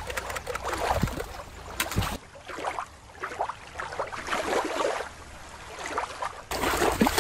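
Shallow stream water lapping and splashing around a toy shark held in it, with a steady low rumble. About two seconds in it gives way to a quieter, crackly, bubbling underwater sound, and the stream water returns near the end.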